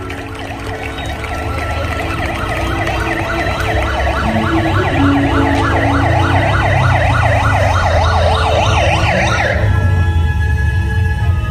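An emergency-vehicle siren in yelp mode, its pitch swinging rapidly up and down several times a second, over a low rumble. It grows louder and then cuts off suddenly near the end.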